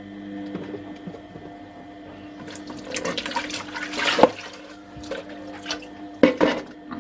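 Kitchen tap water running into a pot as it is rinsed in the sink, starting a little before halfway, followed by a few hard knocks of the pot against the sink. A steady low hum runs underneath.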